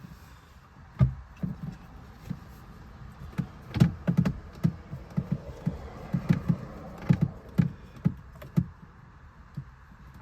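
Irregular clicks and taps of a hand tool and hands driving in the lower mounting screws of the steering column cover, with plastic trim knocking.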